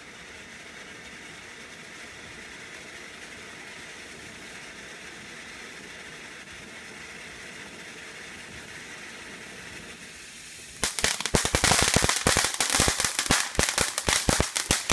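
Fireworks fountain spraying sparks with a steady hiss. About eleven seconds in it breaks into loud, rapid crackling, many sharp cracks in quick succession, as it throws out a wide spray of crackling sparks.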